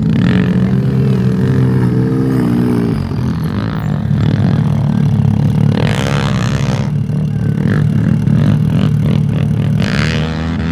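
ATV engines running, one revving up and down in surges during the first few seconds, with further bursts of throttle later.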